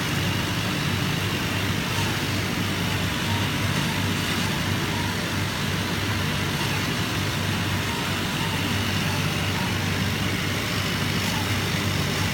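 Steady machine running noise: a constant low hum under an even hiss, with no strokes, starts or stops.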